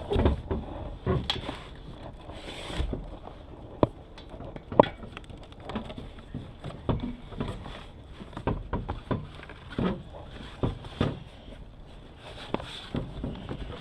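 Irregular clicks, knocks and rubbing from hands working a bicycle tire and inner tube onto the wheel rim, with a sharper knock about five seconds in.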